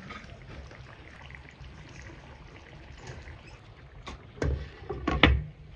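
A low steady hum with a few sharp knocks near the end: one about four and a half seconds in, then a louder pair just after five seconds.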